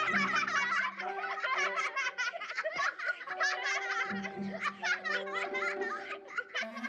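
High-pitched cartoon character voices giggling and squealing in quick, wavering bursts over light background music.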